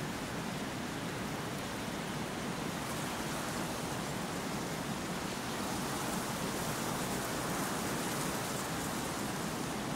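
Wind blowing in a steady, even rush of noise, growing slightly louder partway through.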